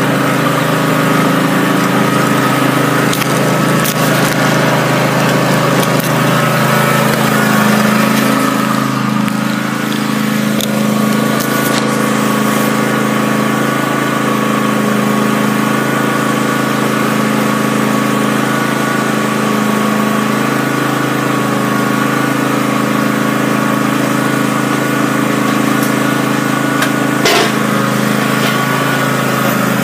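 John Deere X300 lawn tractor engine running steadily, its pitch shifting about seven seconds in. A single short knock near the end.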